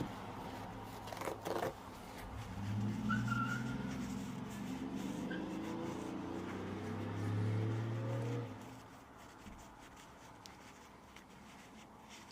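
2010 Ford F-150's 5.4L V8 engine running at a rough, uneven idle, its pitch shifting up and down, then dropping away about eight and a half seconds in. These are the idle-hunting symptoms caused by a damaged electronic throttle body connector. A couple of sharp knocks come a little over a second in.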